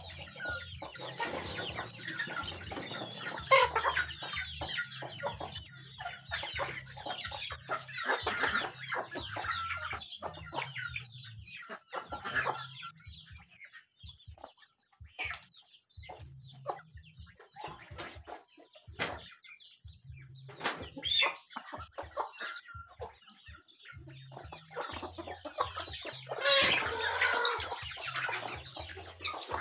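A flock of chickens clucking while they peck at feed, with many short sharp taps. The activity is busy for the first dozen seconds, thins to scattered taps in the middle, and picks up again near the end.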